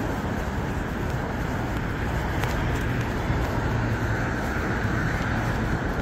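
Steady city street traffic noise, an even hum of passing cars.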